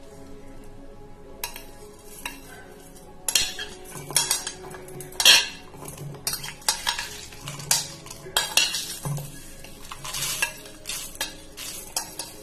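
A steel spoon scraping across a plate while whole spices, onion and garlic pieces drop and rattle into a steel mixer-grinder jar: an irregular run of scrapes and clinks, sharpest a little past the middle.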